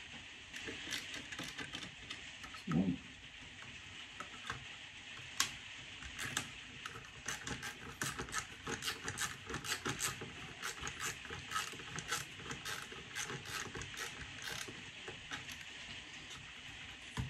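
Hand screwdriver turning the retaining screw into the plastic front cover of a Hive thermostat receiver: a long run of small, quick clicks and ticks, busiest in the middle. A brief low sound about three seconds in is the loudest moment.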